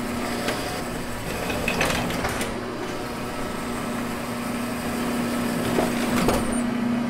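Industrial printing press running with a steady motor hum, with a few light clicks and knocks of metal parts being handled, about two seconds in and again near the end.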